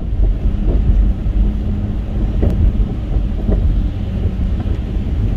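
Loud, steady low rumble of a car driving on a wet, snowy road, with wind buffeting the microphone and a few faint knocks.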